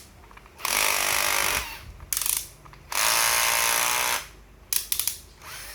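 Ryobi 12V cordless drill run off the trigger in bursts: about a second, a short blip, then a longer run of over a second, followed by a few sharp clicks near the end.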